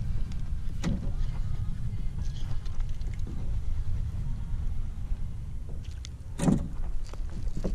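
Steady low rumble of wind and water around a plastic fishing kayak on open water, with a sharp knock about a second in and a louder knock near the end.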